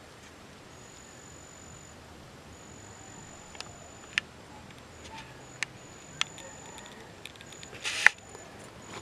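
Handling noise on a handheld camera: a few sharp clicks and taps, then a brief rustle with a loud click near the end. Underneath, faint outdoor background hiss and a thin high tone that comes and goes.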